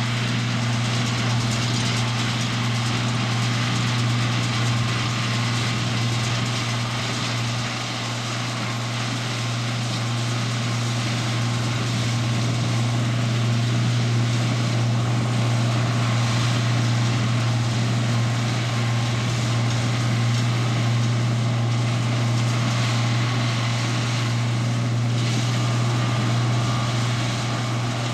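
Farm tractor engine running steadily at constant speed, a continuous low drone.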